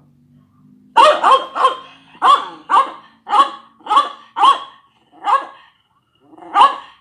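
Dog barking: about ten sharp barks in irregular bursts, starting about a second in.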